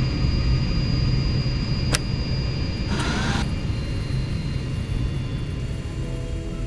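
Steady low drone of an airliner cabin in flight, with a sharp click about two seconds in and a short scraping burst about a second later.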